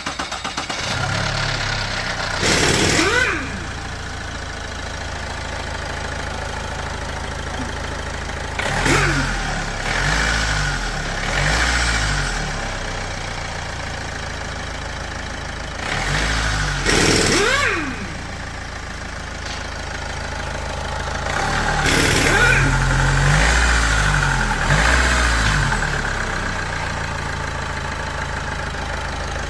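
Opel Insignia 1.6 CDTI diesel engine idling, rising in revs four times and settling back, running after its fuel filter has been replaced.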